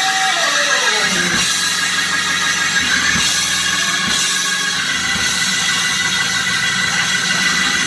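Loud live church band music with drums and held keyboard chords, and a falling pitch slide in the first second or so.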